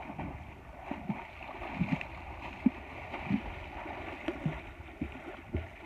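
Water splashing and sloshing as swimmers kick and paddle, with a splash every second or so.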